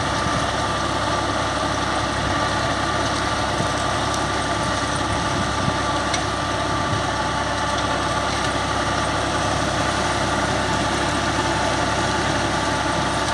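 Al-Ghazi (New Holland) tractor's diesel engine running steadily under load while driving a rotary tiller through the soil, with a steady high whine over the engine noise.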